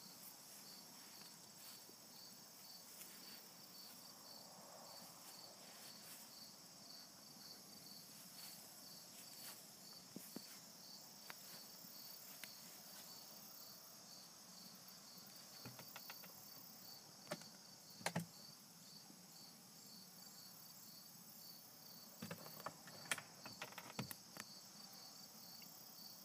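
Crickets chirping faintly and steadily in an even pulse, with a few sharp clicks and knocks in the later part, the loudest about two-thirds of the way through.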